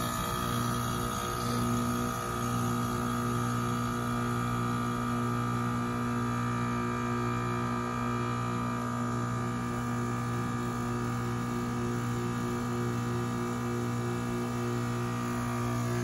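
2007 Goodman GSH13 heat pump outdoor unit running in heating weather: a steady, even hum from the compressor and condenser fan, with no changes.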